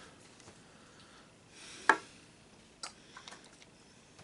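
A few light clicks and taps of metal parts and hand tools being handled while a throttle body is taken apart. The sharpest click is about two seconds in, with a few fainter ticks about a second later.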